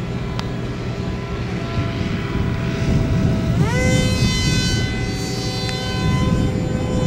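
Brushless electric motor and pusher propeller of a ZOHD Orbit 900mm foam flying wing buzzing overhead; about three and a half seconds in its pitch rises quickly as the motor speeds up, then holds steady. Wind rumbles on the microphone throughout.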